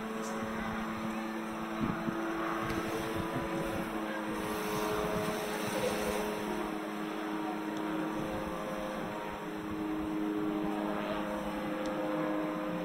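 An engine running steadily, a hum of several steady tones over background noise.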